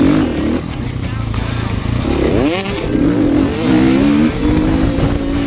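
Motocross bike engine revving under load as it rides, its pitch sweeping up sharply a little past two seconds in and then holding high, with wind rush on the bike-mounted microphone.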